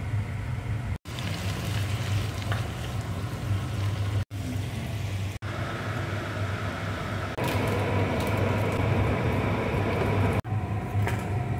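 Kitchen cooking sounds in several short cuts over a steady low hum, ending with food being grated on a handheld grater over a pan.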